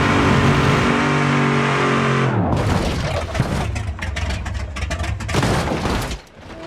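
Car engine held at high revs, its pitch stepping between steady levels. From about two and a half seconds in it gives way to a rough stretch of rattling knocks and impacts, like a car being battered and crashing.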